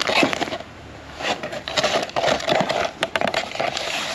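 Blind-box packaging being handled: irregular crinkling, rustling and light clicks of cardboard and plastic wrap.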